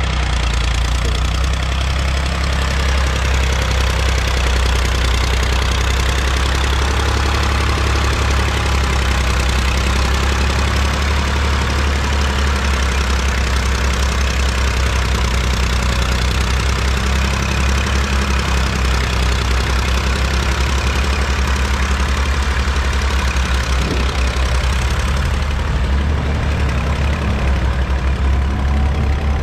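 1966 Massey Ferguson 135's 2.5-litre three-cylinder Perkins diesel engine running steadily under load as the tractor draws a spring-tine harrow across ploughed ground, with a deep, even engine note.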